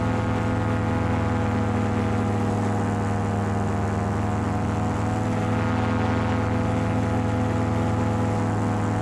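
Paramotor engine and propeller running at a steady throttle, heard close up from the pilot's harness as an even, unchanging drone with wind rush over it.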